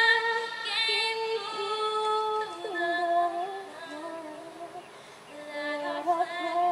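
A woman singing solo, holding long notes.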